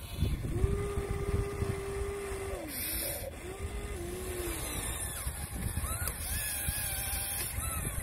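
Electric motors of a Huina 1:14-scale RC excavator whining as the arm swings and the bucket lowers into sand: one steady whine for about two seconds that sags in pitch as it stops, then a shorter one, over low crunching and knocking.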